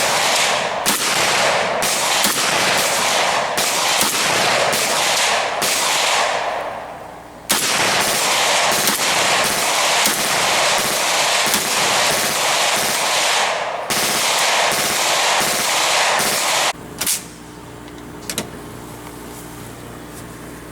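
Rapid gunfire in two long strings of several seconds each with a short lull between, then two single shots near the end.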